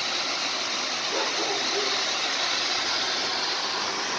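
Ground fountain firework spraying a column of sparks with a steady, even hiss.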